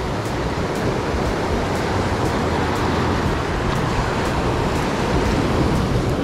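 Heavy surf breaking and washing over shoreline rocks, a steady rushing noise mixed with wind.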